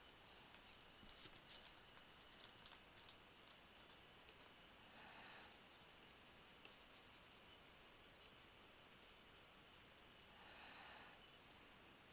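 Faint scratching and tapping of a stylus on a graphics tablet. Two breaths out through the nose close to the headset microphone, one about five seconds in and one near the end.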